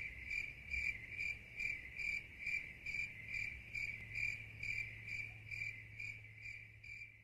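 Cricket chirping: a steady high trill pulsing about two to three times a second, fading out near the end.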